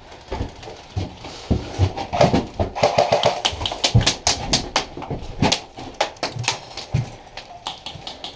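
Airsoft guns firing in irregular single shots, sharp snapping clicks that come thickest in the middle. Under them run dull thumps of movement, footsteps and gear.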